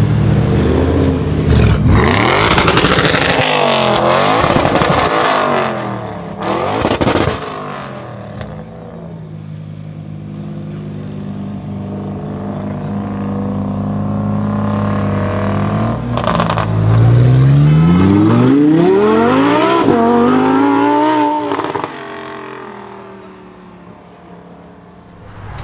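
Decat Audi RS6 C7 with a Milltek exhaust and stage 2 tune: its twin-turbo V8 idles, then is revved hard several times with pops and crackles. Then comes a hard acceleration, the pitch climbing through two gears before the throttle is lifted near the end.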